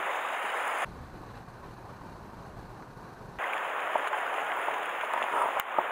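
Sea water washing over shore rocks, a steady hiss. It drops abruptly to a quieter low rumble about a second in, and returns about three and a half seconds in. A single sharp click near the end.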